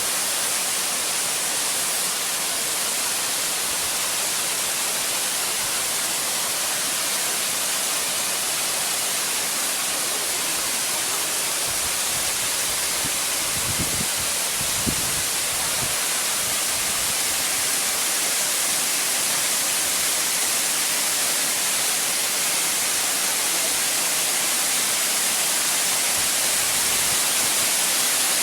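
Waterfall: falling water rushing in a steady, hissy noise, with a couple of brief low thumps about halfway through.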